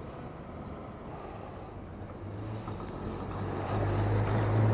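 An old pickup truck's engine running as it drives up and passes close by, a steady low hum that grows louder over the last two seconds.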